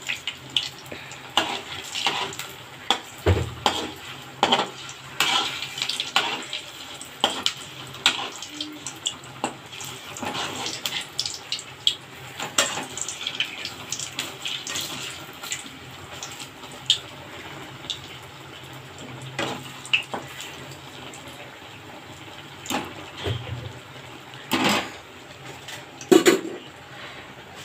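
Tel pitha deep-frying in hot oil in an aluminium karahi: steady sizzling and crackling, with irregular clinks and scrapes of a metal spatula against the pan.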